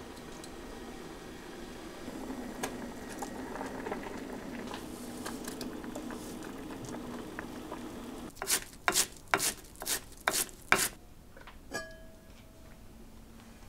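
Soup simmering in a pot, a steady low bubbling. About eight seconds in come six quick scrapes roughly half a second apart, like scallions being scraped off a wooden cutting board into the pot. Then a single clink of a pot lid that rings briefly.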